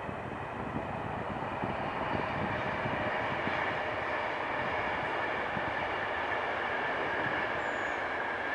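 De Havilland Canada Dash 8-400 turboprop engines and propellers running in flight, a steady drone with a high whine that swells slightly and holds.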